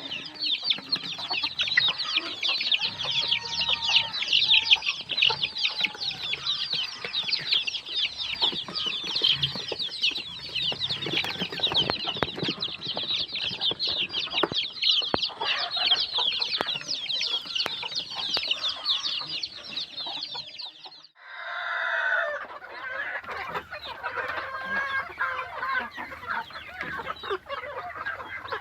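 Many baby chicks peeping at once in a dense, high chatter; about 21 seconds in it cuts to adult chickens clucking in lower calls.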